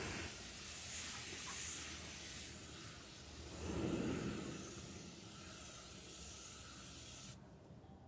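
Water spraying from a garden hose nozzle into a shallow saucer as a steady hiss, cutting off sharply near the end when the nozzle is released.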